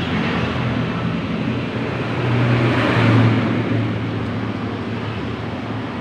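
A motor vehicle driving past, its engine hum and road noise growing louder to a peak about three seconds in and then fading away.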